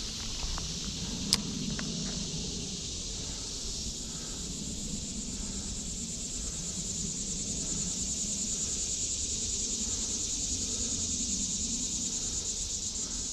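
Steady high-pitched chorus of insects, turning to a fast, even pulsing in the second half. A single sharp click sounds about a second in.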